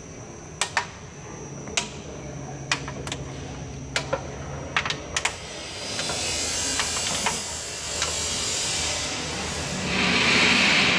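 Automatic bottle washing-filling-capping machine running: a low hum with irregular sharp clicks and knocks for the first five seconds or so, then a steady hiss from about six seconds in that grows louder near the end.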